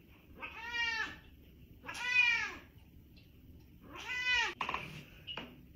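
Domestic cat meowing three times, each call rising then falling in pitch, the middle one loudest. A brief scuffing noise follows the third meow.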